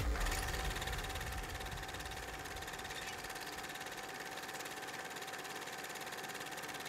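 A sharp click, then a steady mechanical hum with one held tone and a fine even flutter, like a small motor or fan running.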